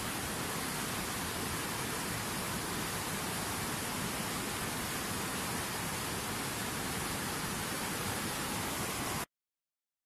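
Steady roar of a waterfall, an even rushing hiss of falling water that cuts off abruptly about nine seconds in.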